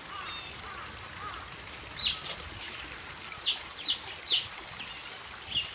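Asian small-clawed otters calling with short, high-pitched peeping chirps: one sharp call about two seconds in, then a quick run of four near the end, over fainter twittering.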